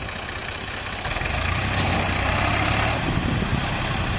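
Fiat 480 tractor's three-cylinder diesel engine running steadily while driving a wheat thresher, the combined machinery noise getting louder about a second in.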